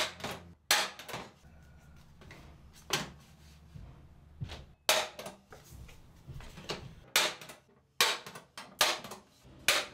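A Neiko spring-loaded automatic center punch firing against a sheet-steel cabinet panel, marking hole centres. It gives a series of sharp snaps at irregular intervals, coming closer together in the last two seconds.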